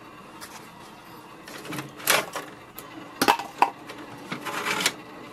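Plastic paper input tray of an HP OfficeJet Pro 8028 printer being handled: scattered clicks and scrapes, a scrape about two seconds in, sharp clicks a little after three seconds and more scraping about a second later.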